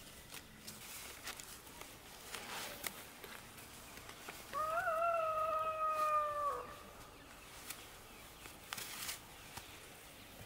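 A rooster crowing once: one long call of about two seconds, near the middle, that jumps up at the start and then holds almost level. Faint scattered clicks and rustles around it.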